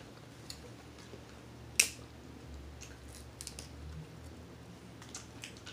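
Crab shells being cracked and picked apart while eating: one sharp crack about two seconds in, then a few faint clicks and snaps.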